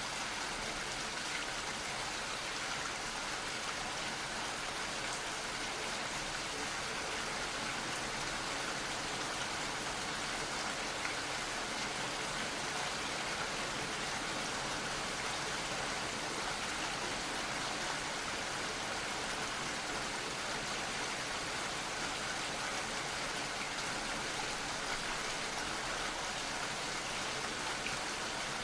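Gentle rain falling steadily, an even patter of many small drops with no let-up.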